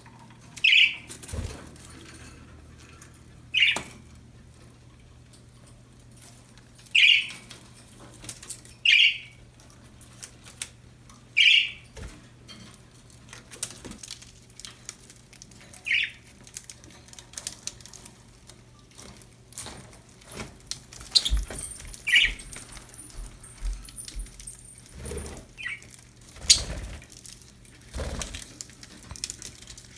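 Pet budgerigars (budgies) giving short single chirps every few seconds. There are a few low thumps in the second half.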